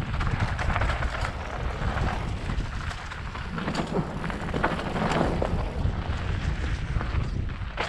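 Wind buffeting a helmet-mounted camera's microphone as a mountain bike rolls fast down a dirt trail, with a heavy low rumble and many small crunches and rattles from tyres on loose dirt and stones.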